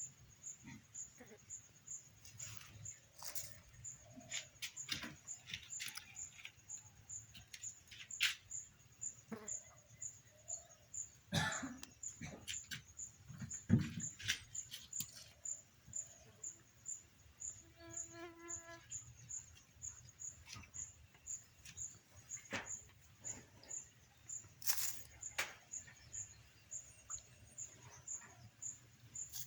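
Outdoor nature ambience: a high, thin chirp repeating steadily about twice a second, with scattered clicks and a brief pitched animal call about eighteen seconds in.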